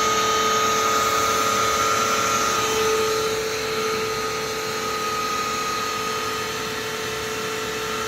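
Vacuum cleaner motor running steadily, a constant hiss of rushing air under a high motor whine. It gets slightly quieter about three seconds in.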